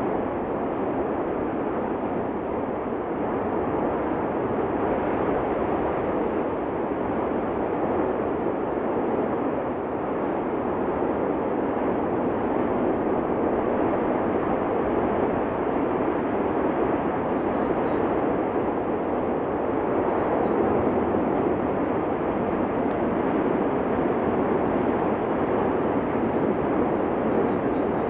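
Steady, unbroken roar of the Cumbre Vieja fissure eruption, holding an even level throughout.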